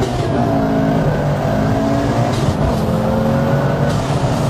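Turbocharged Audi S2 20-valve five-cylinder engine accelerating hard under boost, its pitch climbing and dropping back at each upshift, about three times.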